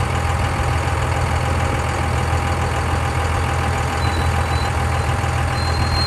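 Dodge Ram 2500 pickup's diesel engine running steadily as the truck rolls slowly forward at low speed, with a deep, even hum.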